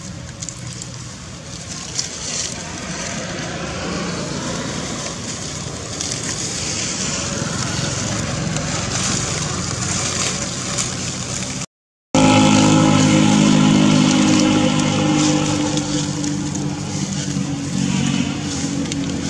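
A motorcycle engine running steadily. The sound breaks off briefly about twelve seconds in, and the engine is louder and clearer after the break.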